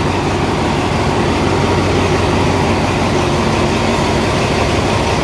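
Diesel locomotive idling beside the platform: a loud, steady engine drone.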